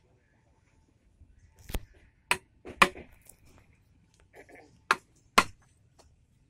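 Metal hammer striking a wooden-handled chisel as it chops a mortise into a turned wooden charpoy leg. Five sharp knocks: three about half a second apart, then a pause, then two more near the end.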